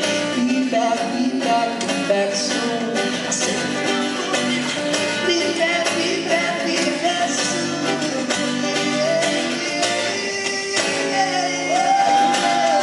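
Live acoustic song: a male voice singing over a strummed acoustic guitar, with a long held note near the end.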